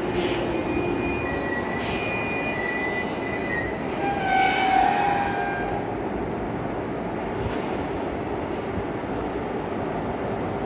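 Hanshin 5000 series commuter train pulling into a station and coming to a stop, with high squeals from the wheels and brakes as it slows, loudest about four to five seconds in, then a steady hum as it stands at the platform.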